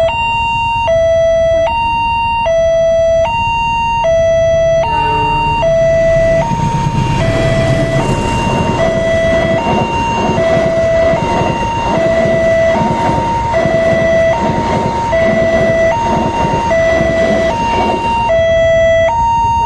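Railway level-crossing warning siren sounding a steady two-tone alarm: a higher and a lower tone alternate evenly, each held just under a second. A loud rushing rumble joins about six seconds in and dies away near the end.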